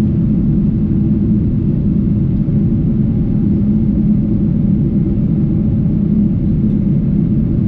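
Steady low cabin drone of a Boeing 777-300 in flight, the engine and airflow noise heard inside the passenger cabin.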